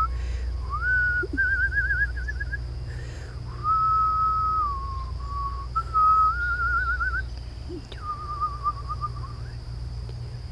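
A person whistling a slow, wavering tune: held notes with a warble in them, sliding from one to the next, broken by short pauses.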